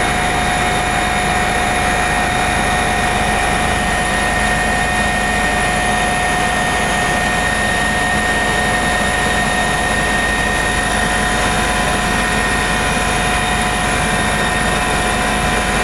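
Eurocopter EC145 twin-turbine helicopter in steady flight: a constant, unchanging rotor and engine noise with a high, steady turbine whine.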